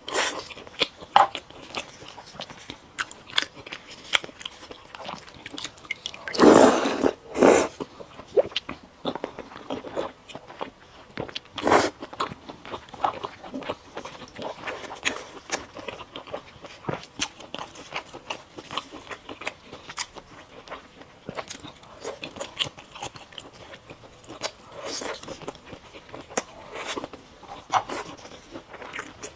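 Close-miked eating: a person biting and chewing food with many small crunching clicks. There are a few louder bites about six to seven seconds in and again near twelve seconds.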